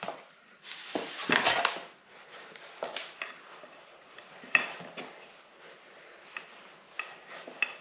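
Handling noise: a rustle about a second in, then scattered light clicks and taps of small hard items being moved and set down.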